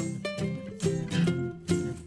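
Background music with plucked string notes.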